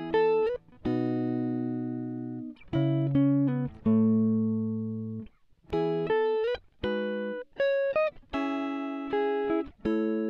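Background music: a plucked guitar playing chords and notes, each struck about once a second and left to ring and fade.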